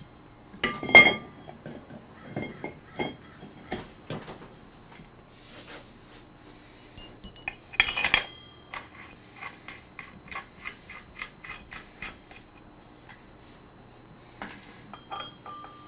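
Steel engine parts clinking and clanking as a VW Type 1 flywheel is fitted with its end-play shims onto the crankshaft and its gland nut started. The loudest ringing clanks come about a second in and about eight seconds in. They are followed by a run of quick, even metallic clicks, about three a second.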